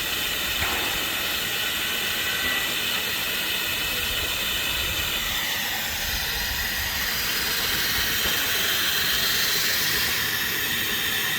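Live-steam model locomotive boiler blowing down: steam hissing steadily out of the open blowdown valves, emptying the boiler so that it dries out. The hiss turns sharper and higher about halfway through.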